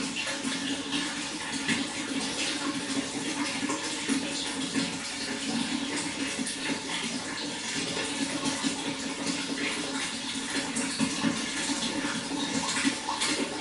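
Running water flowing and splashing, steady and unbroken.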